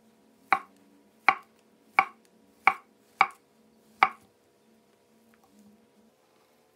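Chef's knife slicing a banana on a wooden cutting board: six sharp knocks of the blade on the board, about one every two-thirds of a second, stopping about four seconds in.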